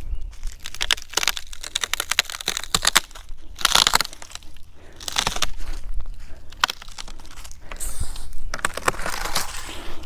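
Dry leaves and twigs crackling and crunching as a long dead branch is dragged and pulled about over dry ground, in many irregular bursts.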